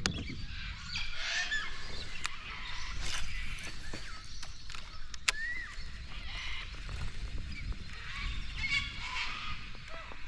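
Corellas and cockatoos squawking and screeching on and off, with a few sharp clicks and a low rumble underneath.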